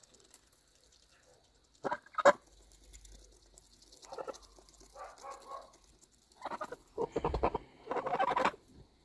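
Domestic geese honking and chattering in short irregular calls while eating grain from a hand, louder towards the end. Two sharp clicks about two seconds in.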